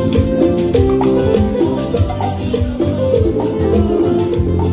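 Live band playing an instrumental passage of Peruvian cumbia through the stage PA: a steady drum-and-bass dance beat under guitar and keyboard lines, with no singing.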